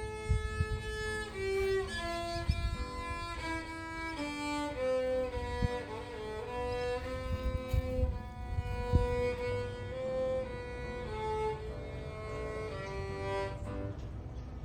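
Background music: a bowed string instrument playing a slow melody of long held notes, with irregular low thumps and rumble underneath.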